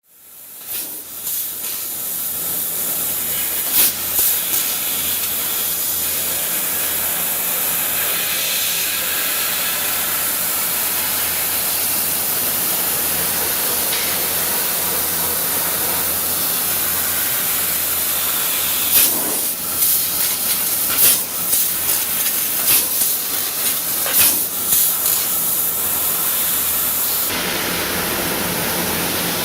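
Trumpf L3030 3.2 kW CO2 laser cutting machine running, with a steady loud hiss. A sharp crack comes about four seconds in, and a burst of sharp cracks follows between about 19 and 25 seconds.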